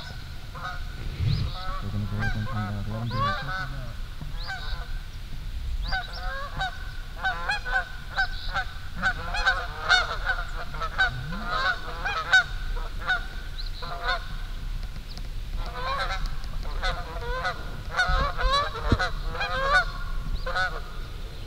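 A flock of Canada geese honking in flight overhead, many short calls overlapping, getting busier a few seconds in.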